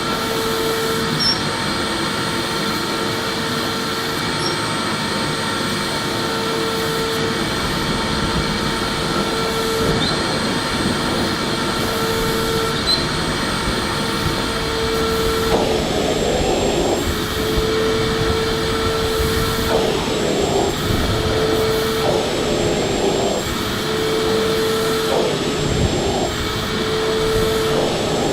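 Electric vacuum cleaner running continuously: a steady whir with a held tone. From about halfway the sound turns rougher, with short irregular surges every couple of seconds.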